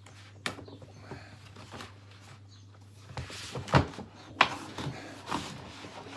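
Printed cardboard sleeve scraping as it slides off a hard plastic carry case, with rustling and a few sharp knocks of the plastic case being handled. The loudest knocks fall a little before and after four seconds in.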